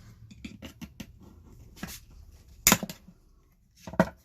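Small clicks and taps of plastic pump parts being handled, then two sharp knocks, about two and three-quarter seconds and four seconds in, as pieces of the air mattress pump's plastic housing are set down or knocked on the table.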